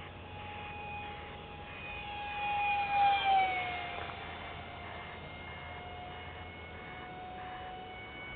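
Phase 3 EF-16 electric ducted-fan model jet flying past: a steady high fan whine that swells to its loudest about three seconds in, its pitch dropping as it goes by, then carrying on a little quieter and lower.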